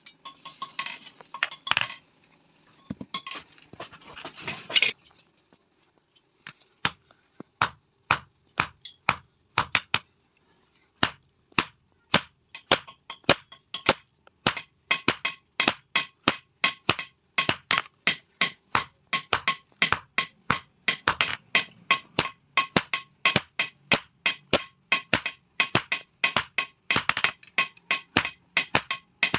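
Hammer striking steel on an anvil, the metal ringing with each blow. After a few seconds of scattered clatter and a short pause, the blows start singly and settle into a steady rhythm of about three a second.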